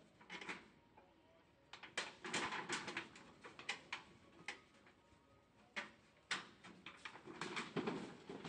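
Light, irregular taps and knocks on wooden deck boards as young long-tailed macaques move about and handle food on them, coming in two busy clusters.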